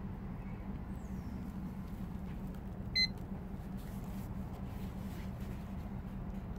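Digital kitchen timer gives one short, high beep about three seconds in as it is started, over a steady low background hum.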